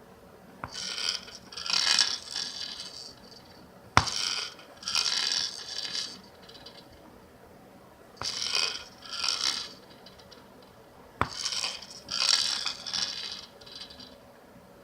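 A small ball rolling and rattling along the curved plastic track of a 3D-printed scoliometer, four times, each run starting with a sharp click and rattling on for a second or two.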